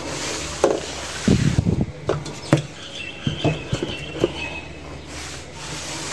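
Knocks and rustling from a phone camera being handled and moved about, over a low steady hum.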